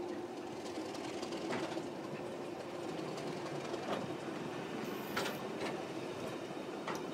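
Passenger coaches rolling slowly past on the next track, their wheels giving a few sharp clicks over the rail joints, over a steady diesel engine drone.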